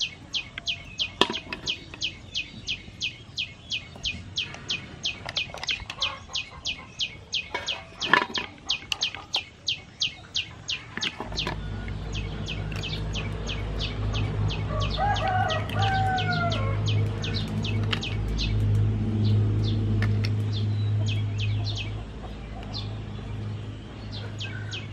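A bird chirping over and over, about three short high chirps a second, with a couple of sharp clicks of mussel shells against an aluminium basin. About 11 seconds in a low droning hum joins, and a rooster crows briefly around 15 seconds in.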